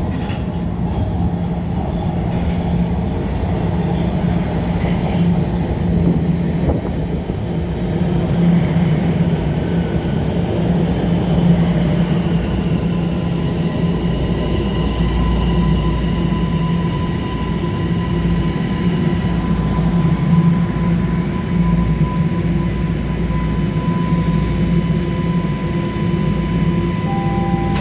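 Subway train running on the rails with a steady loud rumble. High wheel squeals come in about two-thirds of the way through, and a steady whine sets in about halfway.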